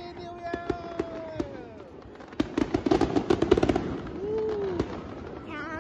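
Firecrackers popping in rapid, irregular strings of cracks, densest about two and a half to four seconds in.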